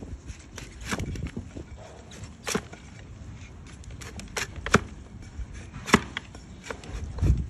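A wide flat hoof-trimming blade is pushed down through a donkey's thick, overgrown hoof on a wooden block, paring off slices of horn. It gives a low scraping crunch, broken by several sharp, irregular cracks as the blade chops through the horn.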